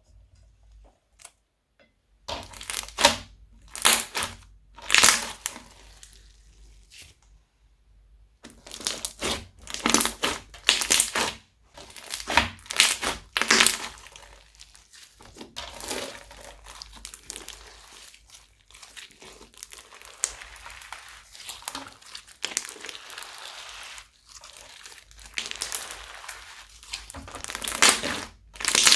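Crunchy slime being squeezed and pressed by hand, crackling and crunching in irregular bursts after about two seconds of quiet.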